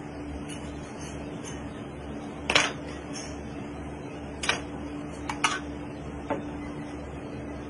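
Kitchen utensils clinking: a handful of short, sharp clicks as a chef's knife is laid down on the counter and a metal spoon works in a steel sauce pan, the first clink the loudest. A steady hum runs underneath.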